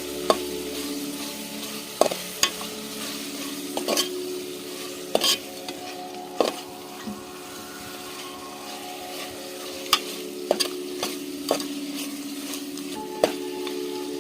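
Chicken pieces sizzling as they fry in a pan, stirred with a spoon that knocks against the pan at irregular moments, about once a second.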